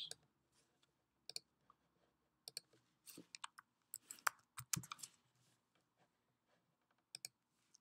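Computer keyboard keystrokes and mouse clicks, a few scattered sharp clicks with a quick cluster of keystrokes about four seconds in.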